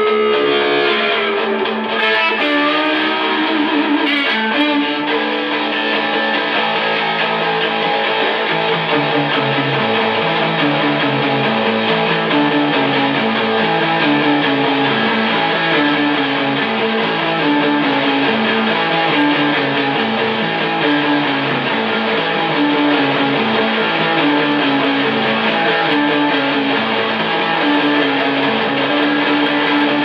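Hollow-body electric guitar being played: a held chord dies away about a second in, then a repeating riff of low notes runs on steadily.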